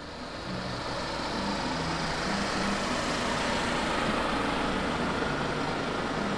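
Minivan engine running as the van pulls up and idles, over a steady rushing noise that swells during the first second and then holds.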